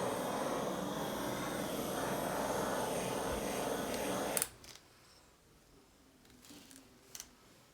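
Handheld butane torch running with a steady hiss as it is passed over wet acrylic pour paint to pop air bubbles, then shut off with a click about four and a half seconds in. Faint room tone with a few small ticks follows.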